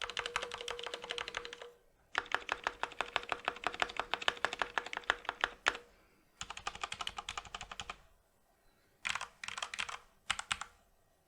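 Corsair K65 RGB Rapidfire mechanical keyboard with Cherry MX Speed Silver linear switches and stock ABS keycaps being typed on, its stabilizers greased with Super Lube. Fast runs of keystrokes are separated by short pauses, and a few brief bursts of keystrokes come near the end.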